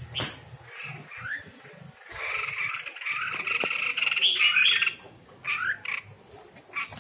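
Red-whiskered bulbul calling: a few short chirps, then a long, loud run of calls lasting nearly three seconds starting about two seconds in, followed by more short chirps near the end.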